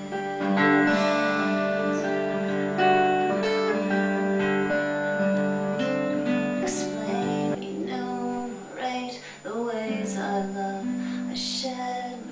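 Acoustic guitars playing an instrumental passage of a song: strummed chords under a slide guitar line that glides between notes.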